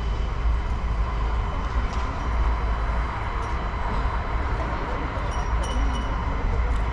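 Train running on rails with a continuous rumble and rail noise.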